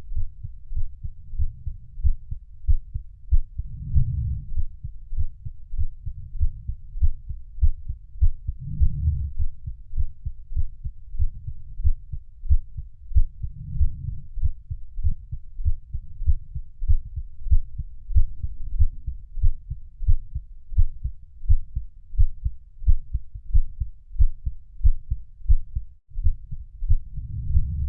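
Heartbeat: low, muffled thumps repeating steadily at roughly one a second, with a low swell every five seconds or so.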